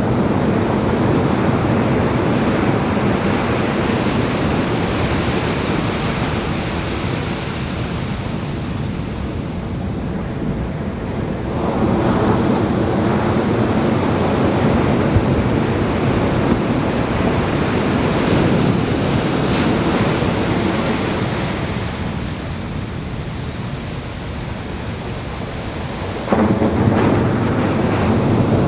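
Ocean surf washing on a beach, a steady rush that swells and eases, with a louder surge starting suddenly near the end.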